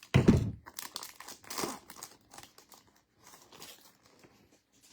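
Foil wrapper of a football trading-card pack crinkling as it is torn open and handled, in a few short bursts. The loudest burst comes just after the start.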